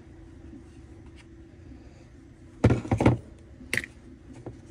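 Weed-eater parts being handled: a quick cluster of loud knocks and clatter a little past halfway, then a single sharp click with a short ringing note and a few faint clicks. A steady low hum runs underneath.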